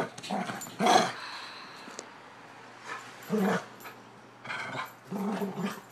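German Shorthaired Pointer vocalizing three times in low-pitched protest at being made to get off the bed.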